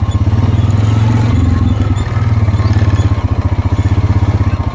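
ATV engine running with a fast, even pulsing beat.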